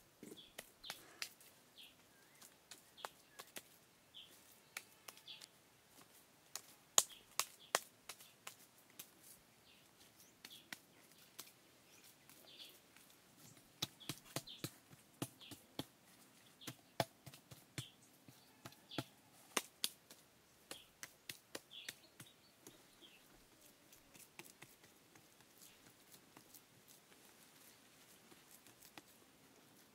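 Faint, irregular sharp taps and clicks, thickest in the middle and thinning out near the end, with short high chirps scattered among them.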